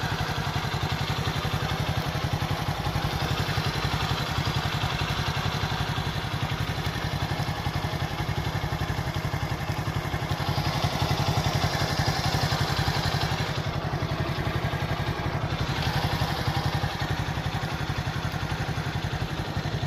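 An engine running steadily at an even speed, with a low, rapid, regular pulse.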